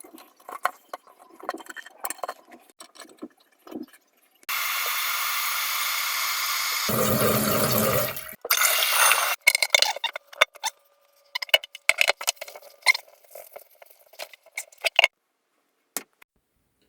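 Clinks and scrapes of toilet tank parts being handled, then about four seconds of steady rushing water with a low gurgle at its end, then more clinking and clattering that stops shortly before the end.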